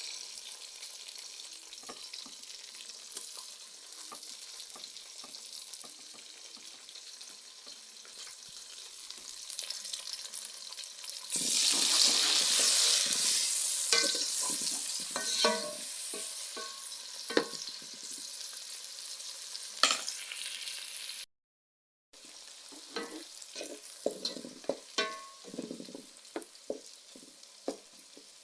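Onions and chili frying in oil in a pan, sizzling steadily while a spoon scrapes and knocks against the pan as they are stirred. About eleven seconds in, the sizzle suddenly grows louder for a few seconds, then settles back. The sound cuts out for about a second two-thirds of the way through.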